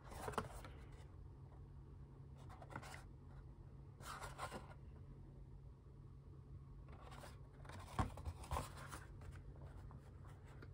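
Faint handling noise of a VHS tape case being turned in the hand and set down on a bedspread: scattered light rustles and scrapes, with two soft knocks about eight seconds in, over a steady low hum.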